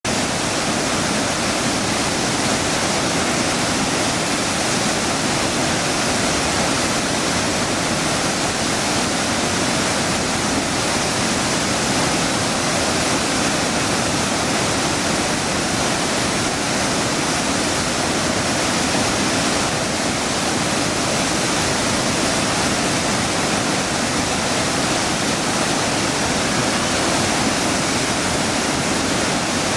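Loud, steady roar of rushing water pouring from the open floodgates of a reservoir dam and crashing into the river below.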